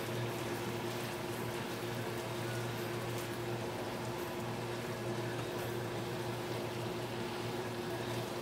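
Beef pieces sizzling and bubbling in sauce in a nonstick frying pan, a steady hiss with faint ticks about every second, over a steady low hum.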